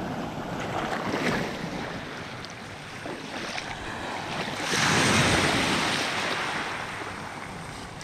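Small Black Sea waves washing in over a pebble beach. One surge comes about a second in, and a bigger, louder one comes around five seconds in before it ebbs away.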